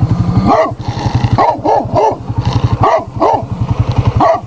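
Bully kutta (Pakistani mastiff) barking about seven times in short, deep barks, some in quick pairs and triples, over a steady low pulsing rumble.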